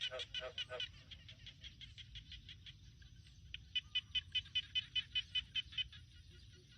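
An animal calling in rapid, evenly spaced high chirps, about six a second, in two bursts: one at the start and a louder one from about three and a half seconds in. A lower note repeats a few times near the end.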